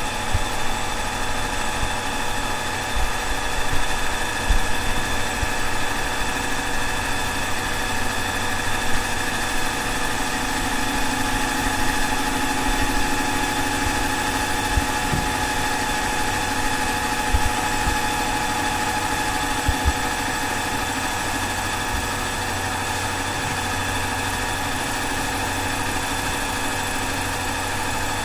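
Tata Ace engine idling steadily, with a few brief low thumps in the first half.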